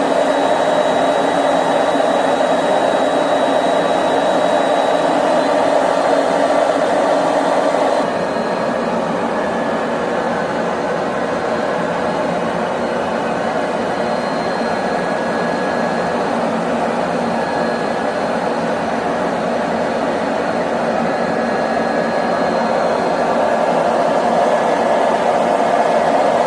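Steady rushing, whooshing machine noise with a faint high whine, dropping slightly in level about eight seconds in.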